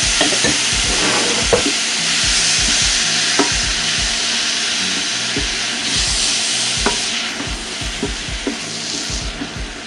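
Corn, black beans and onions sizzling in a hot stainless saucepan while a wooden spoon stirs them, knocking and scraping against the pan. The sizzle eases a little near the end.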